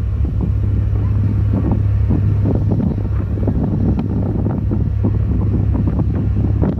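Wind buffeting the phone's microphone on the deck of a moving ferry, over a steady low drone from the ferry's engines.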